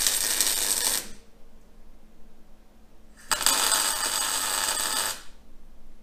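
Electric arc welder crackling in two bursts, the first lasting about a second, the second starting about three seconds in and lasting about two seconds: tack welds joining steel box section.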